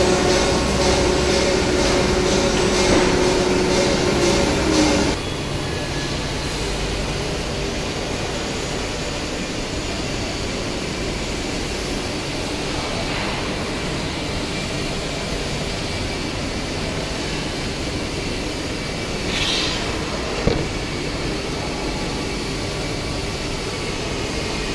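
CNC nesting router's ISO30 tool-changer spindle running with a multi-tone whine as it cuts the board, cutting off about five seconds in. A steady machinery hum then continues, with a short hiss and a single click near the end.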